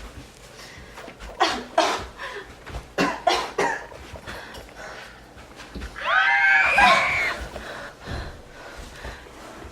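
People coughing in several short fits, typical of breathing smoke. About six seconds in comes a loud, drawn-out vocal cry that rises and then falls in pitch.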